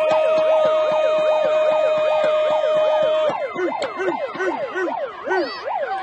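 Siren-like wailing: several fast up-and-down sweeps overlapping a steady held tone. The held tone cuts off about three seconds in, and the sweeps carry on a little quieter.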